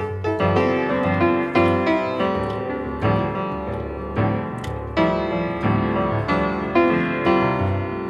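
Background piano music: a run of struck notes, each ringing and then fading.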